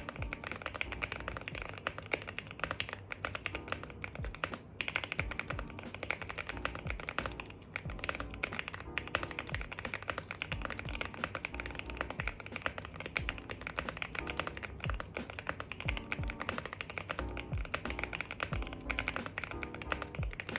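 Continuous typing on a QK65 mechanical keyboard with Gateron Oil King linear switches on a POM plate: rapid, uneven keystroke clacks. Background music plays under the typing.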